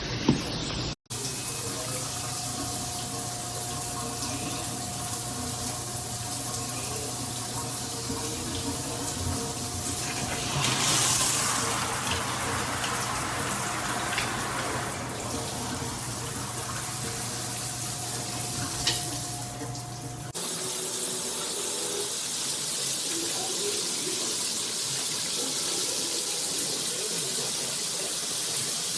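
Shower head spraying water, a steady rush of falling water. The sound changes abruptly about a second in and again about two-thirds of the way through, and a faint steady whistle runs through the middle stretch.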